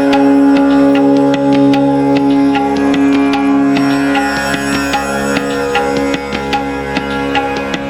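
Background music: a sustained drone under plucked strings and tabla-like hand-drum strokes in a quick, steady rhythm.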